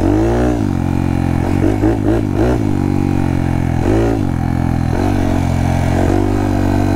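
Honda Monkey's 181cc big-bore single-cylinder four-stroke engine running while the bike is ridden. Its pitch rises and falls again and again as the throttle is opened and closed.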